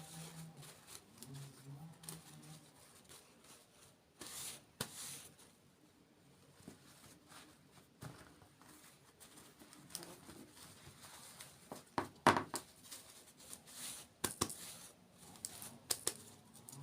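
Close-miked eating and handling sounds of a dessert mukbang: scattered crinkles, taps and crunchy crackles. The loudest is a crisp crunch about twelve seconds in.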